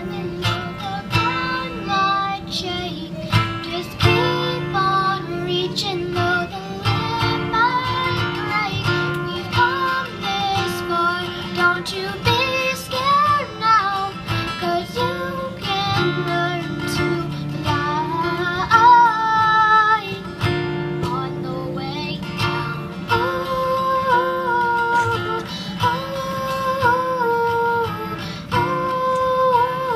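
A young girl singing a country song into a microphone while playing acoustic guitar, her voice amplified through a small PA speaker.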